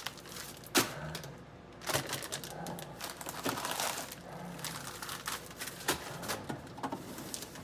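Food packaging crinkling and rustling, with many scattered sharp clicks and taps, as someone handles and eats food taken from a fridge.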